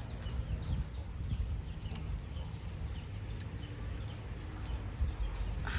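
Outdoor ambience: faint, scattered short bird chirps over a steady low rumble.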